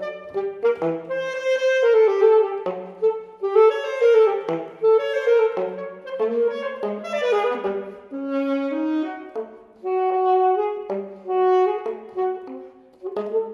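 Alto saxophone playing a fast, agile solo line of quickly changing notes, phrased in short runs with brief breaks between them.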